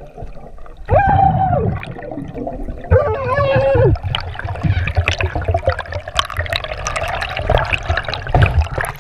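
Underwater audio on a diver's action camera: a muffled low rumble of water with bubbling and small clicks. Two drawn-out pitched tones sound in the first four seconds.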